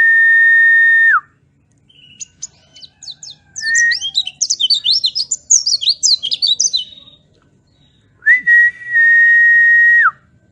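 White-eye (pleci) song: a long, steady whistled note that drops at its end, then a quick burst of high, rapid twittering, then another long whistle that slurs down at the close.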